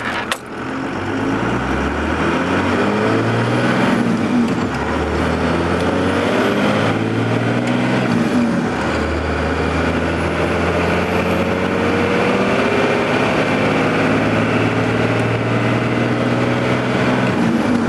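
Dodge Ram's 5.9-litre Cummins turbodiesel pulling hard under acceleration, heard from inside the cab. Its pitch climbs and drops back a few times as the gears shift up, with a faint high whistle rising alongside.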